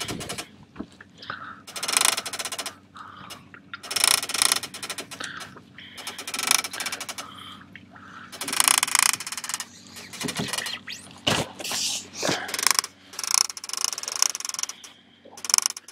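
Fishing reel's clicker ratcheting in short bursts every second or two as a fish pulls line off. It is a bite, hoped to be a tope.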